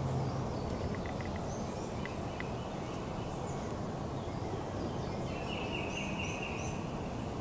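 Steady rush of a shallow woodland stream with small birds chirping, and one longer, louder high call about five and a half seconds in.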